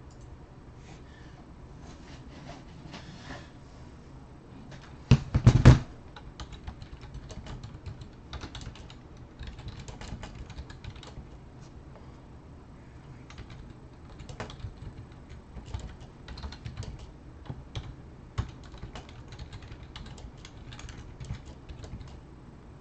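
Typing on a computer keyboard: an irregular run of key clicks and taps. About five seconds in, a few loud thumps are the loudest sounds.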